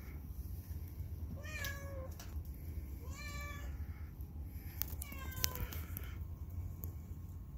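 Long-haired tabby-and-white cat meowing three times, short calls a second or two apart, with a couple of sharp clicks near the last one.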